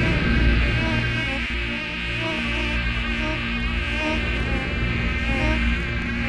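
A swarm of mosquitoes buzzing: many high whines wavering and overlapping, over a steady low hum.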